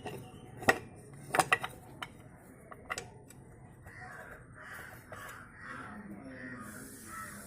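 Several sharp metallic clinks of hand tools and bolts being handled while the rocker cover of a Royal Enfield Standard 500 engine is unbolted, the loudest about a second in and three close together at a second and a half. From about four seconds, a bird gives short harsh calls over and over in the background.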